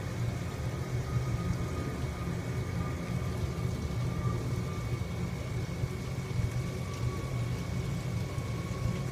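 Steady low background hum with a constant haze of noise, overlaid by a faint, steady high-pitched whine.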